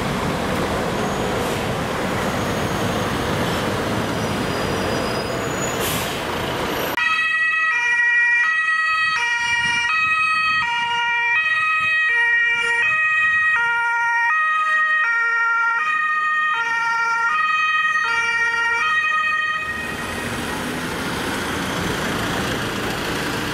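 Engine and road noise, then about seven seconds in an electronic alternating-tone siren sound cuts in with no background noise behind it. It steps between tones about every half second over a steady high tone. It stops abruptly about twelve seconds later, and engine and road noise return.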